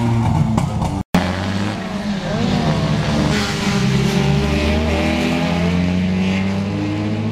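Race car engines running on a circuit. The audio drops out for an instant about a second in. After that an engine is heard going round the track, its pitch rising and falling with the throttle and gear changes.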